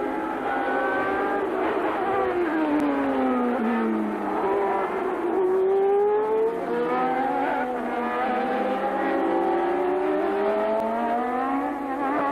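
Engines of several 1988 Formula 1 cars running past, their notes overlapping. Over the first few seconds the pitch drops as the cars slow into the corner, then it climbs again as they accelerate away out of it.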